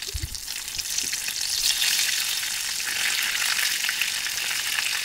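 Breadcrumb-coated eggplant and ham pieces frying in hot oil in a small pan, a steady dense crackling sizzle, while chopsticks turn the pieces. The sizzle builds over the first second.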